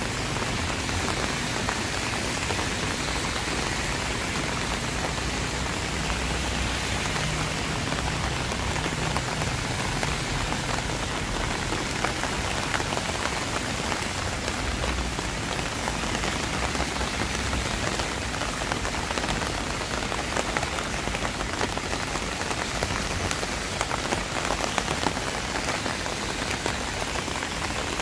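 Steady rain: an even hiss with many sharp, close drop hits scattered through it. A low rumble comes and goes underneath.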